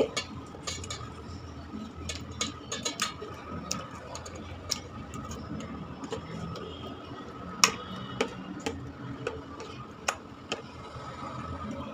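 Hands mixing raw fish pieces with green coriander chutney in a stainless steel bowl while marinating them: irregular light clicks and taps as fingers and fish knock against the steel, the sharpest a little past halfway. A faint steady hum runs underneath.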